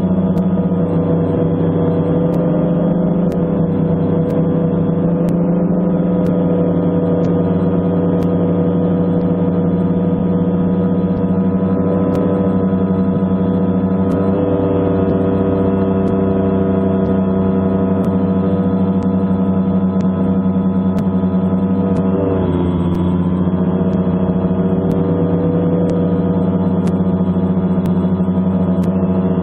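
A camera drone's electric motors and propellers, heard from the aircraft itself, give a steady pitched hum. About three quarters of the way through the pitch drops briefly and then comes back up as the throttle changes.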